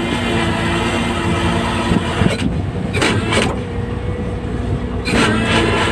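Fishing boat's engine running steadily, with a few sharp knocks about halfway through and again near the end.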